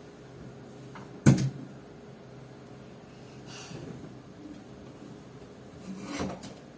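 A blanket being shaken out and spread over a bed, with a soft fabric whoosh about halfway through. A single sharp knock about a second in is the loudest sound, and softer rustles and knocks come near the end.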